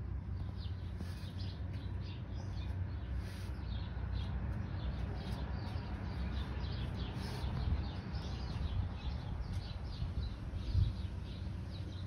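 Small birds chirping in quick, repeated short notes over a steady low rumble.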